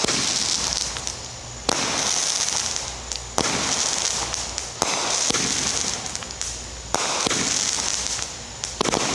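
A 200 g consumer firework repeater cake (Sauron's Fire) firing shots about every one and a half to two seconds, about six in all. Each sharp bang is followed by a long fading crackle from the crackling stars.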